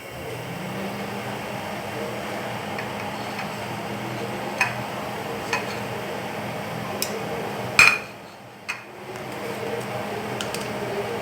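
Steady low mechanical hum with a few sharp clinks of metal utensils against a cooking pan, the loudest about eight seconds in; the hum drops away for about a second after it, then comes back.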